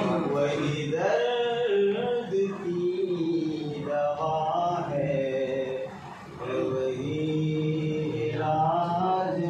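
A man reciting Urdu verse in a sung, chanting style, drawing out long notes that rise and fall, with a short break about six seconds in.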